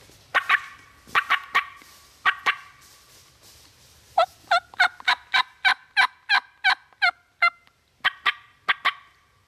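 Wild turkey yelping and clucking. Sharp single and paired clucks come in the first couple of seconds. From about four seconds in there is a steady run of about eleven yelps, roughly three a second, each note falling in pitch. A few more notes follow near the end.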